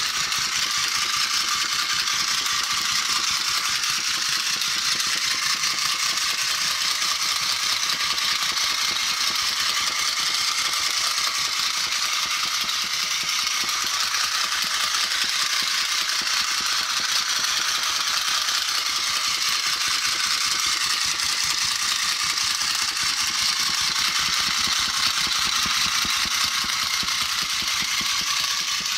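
Small electric motor and plastic gear train of a battery-operated flying toy eagle running steadily, a fast rattling whir as the wings flap. The gear train runs on replacement gears and is holding up.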